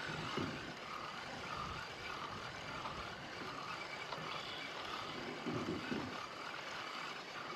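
Fishing reel being cranked to retrieve a square-bill crankbait: a faint whir that rises and falls about twice a second with each turn of the handle. A couple of low rumbles come through now and then.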